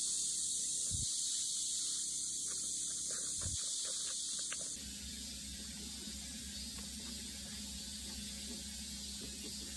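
Steady background hiss that changes abruptly about halfway through, from a bright high hiss to a duller noise with a low hum, with a few faint light ticks just before the change.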